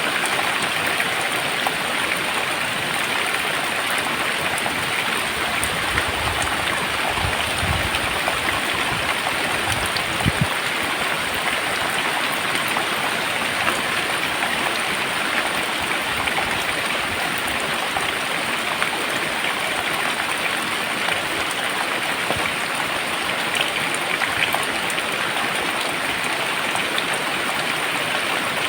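Very heavy rain pouring down steadily, with a few brief low thumps about a third of the way in.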